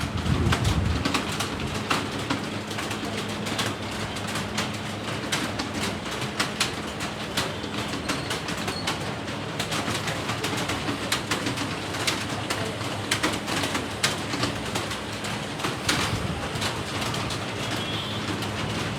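Computer keyboard typing: a fast, irregular run of key clicks over a steady low hum, with no pauses.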